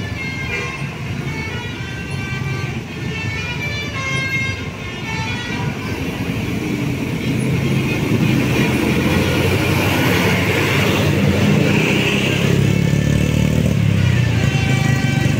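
Bus telolet basuri multi-tone musical horn playing a tune of short notes, over bus engine and road noise. The horn falls silent for a while as the engine noise grows louder, then starts its tune again near the end.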